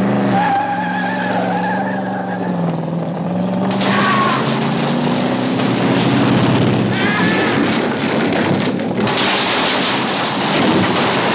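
Car engine revving hard, its pitch climbing steadily over several seconds, with short tyre squeals. About nine seconds in, a loud rush of crashing and clattering as the car smashes through wooden crates.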